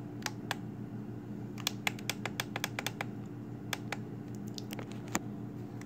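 Clicking of a FrSky Taranis X9D Plus radio transmitter's menu buttons being pressed to page through its screens: scattered single clicks, with a quick run of about ten clicks between about a quarter and a half of the way in. A faint steady low hum underneath.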